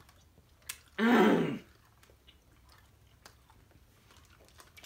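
A boy's voice gives one short drawn-out vocal sound that falls in pitch, about a second in, mumbled through a mouthful of sour candy. Faint chewing and small mouth clicks follow.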